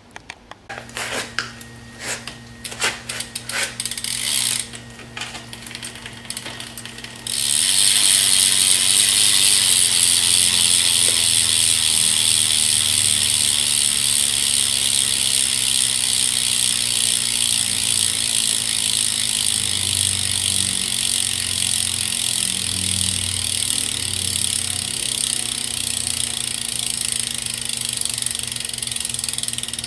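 BMX rear cassette hub freewheeling: for the first several seconds, separate irregular clicks of the pawls. Then, about seven seconds in, the wheel spins freely and the clicks run together into a loud, fast ratcheting buzz that slowly grows quieter.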